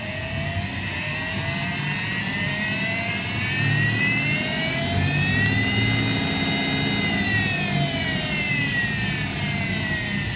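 Hardinge DSM 59 lathe spindle running in high-speed forward, its whine rising in pitch over about five seconds as the variable speed control is turned up. It holds briefly at the top, then falls back down toward the end.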